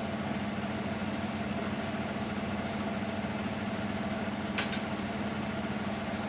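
Car engine idling with a steady hum, and a single short click about four and a half seconds in.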